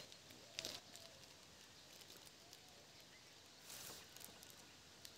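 Faint crinkling of a thin plastic packaging bag being opened by hand, in a few short rustles: one about half a second in and another near four seconds in.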